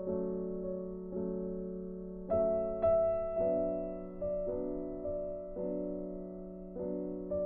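Background piano music: gentle chords struck about once a second, each dying away before the next.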